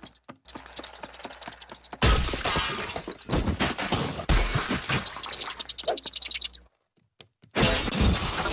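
Cartoon slapstick sound effects of household objects being smashed and knocked over: a rapid run of sharp clicks, then dense crashing and breaking. The crashing breaks off for under a second near the end before starting again.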